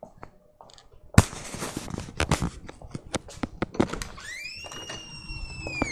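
A door being opened: a sharp click about a second in, a run of clicks and knocks, then a long high squeak that rises, holds and falls away near the end.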